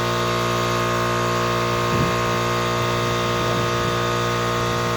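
Steady, even electrical or machine hum made of several fixed tones, with no change in level.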